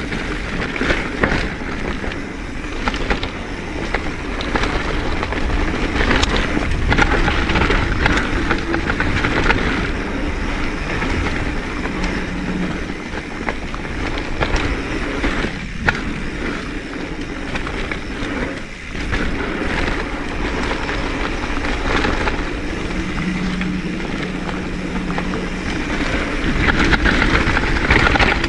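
Mountain bike rolling down a dirt trail: steady tyre noise over dirt and gravel with a low rumble and scattered small clicks and rattles.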